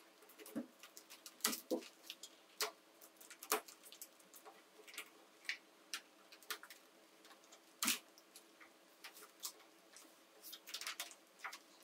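Flexible ribbed plastic exhaust hose crinkling and clicking in irregular snaps as it is worked onto the laser's exhaust port and clamped, over a faint steady hum.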